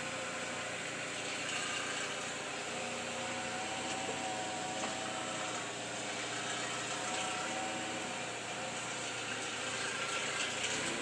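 Chevrolet Sonic engine running steadily at idle, with a steady pitched hum over the engine noise.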